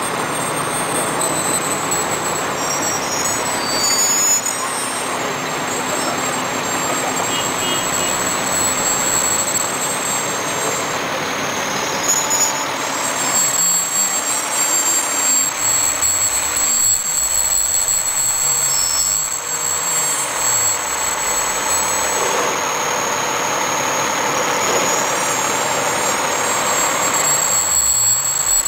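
Fire trucks driving slowly past: the engine and tyres of a large modern fire engine going by close, its low engine note wavering up and down as it moves along, with more trucks following behind.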